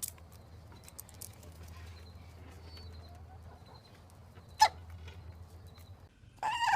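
A single sharp click about two-thirds of the way in, then near the end a loud, drawn-out animal call with a slightly falling pitch.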